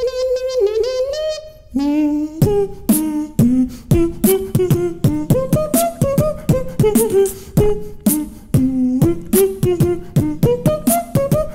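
Vocal music: a held sung note for about two seconds, then a voice singing over sharp, quick percussion hits that sound beatboxed.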